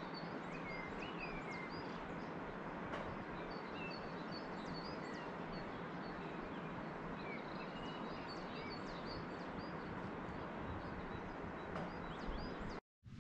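Outdoor ambience: small birds chirping again and again with short, quick high calls over a steady rushing background noise. It cuts off abruptly near the end.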